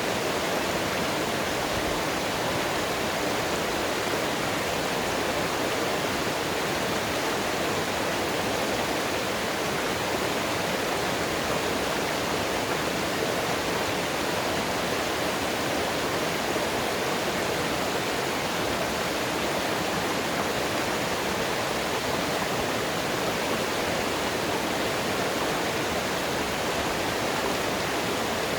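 Running mountain water rushing steadily, a dense, even rush with no breaks or changes.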